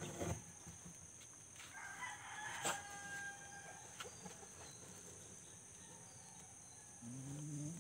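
A rooster crows once, a long held call about two seconds in, with a sharp click partway through it. A steady high chirring of insects runs underneath.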